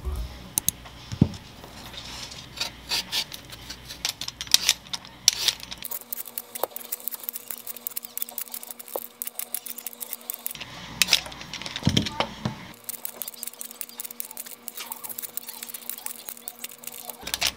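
Handheld Y-peeler scraping the skin off a sweet potato in quick strokes, coming in runs with short pauses between them.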